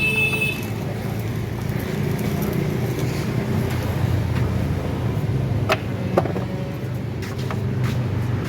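Engine idling steadily, with a couple of sharp metallic clicks about six seconds in.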